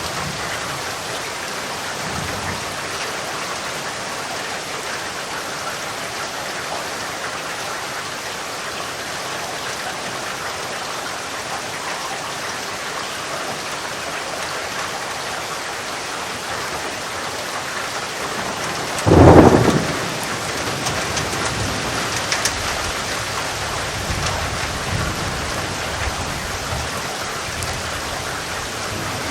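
Steady rain falling throughout. About two-thirds of the way through comes a sharp, loud thunderclap lasting under a second, followed by a few seconds of low rumbling.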